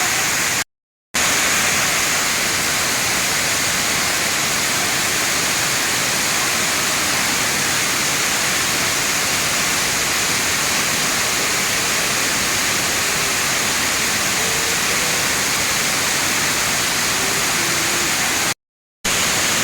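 Waterfall cascading over rock: a steady, loud rush of water, broken by two short gaps of silence, one about a second in and one near the end.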